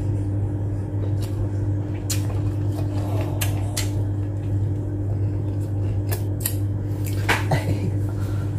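Mouth-eating sounds of a person eating with his hands: scattered wet clicks and smacks from chewing and licking his fingers. A steady low electrical hum runs underneath.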